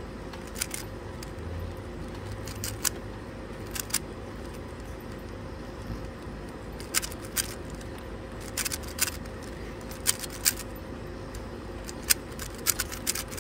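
Plastic 3x3 Rubik's cube being turned by hand: sharp clicks as the layers snap round, at irregular intervals and sometimes in quick runs of two or three.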